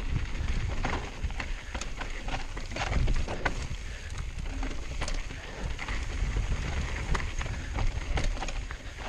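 Mountain bike rolling fast down a rocky trail: tyres crunching over loose rock and gravel, with irregular clicks, knocks and rattles from the bike, over a steady low rumble.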